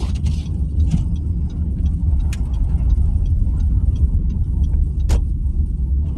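Car driving along, heard from inside the cabin: a steady low rumble of engine and tyres on the road, with a few short sharp clicks.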